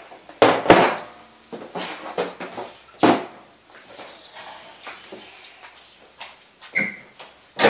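Jump-lead clamps and cables being handled and clipped on at a ride-on mower's battery: a series of sharp metal clicks and clatters. The loudest come about half a second in, about three seconds in and near the end.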